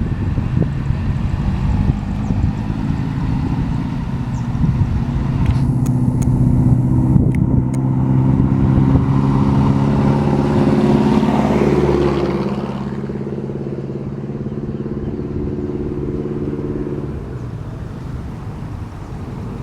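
A motor engine running at a steady pitch, building up through the middle and dropping away about two-thirds of the way through, with a few sharp clicks along the way.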